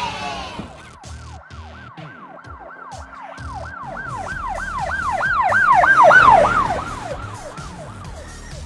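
Police-style yelp siren, a fast rising-and-falling wail of about three to four cycles a second, growing louder to a peak about six seconds in and then fading away.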